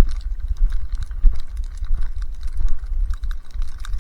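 Footsteps crunching through deep fresh snow, a quick irregular series of crisp crunches, over a steady low rumble of wind on the microphone.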